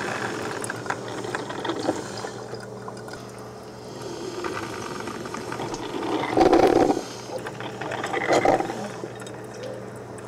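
Drip coffee maker brewing into its glass carafe, gurgling and bubbling, with two louder gurgles about six and a half and eight and a half seconds in.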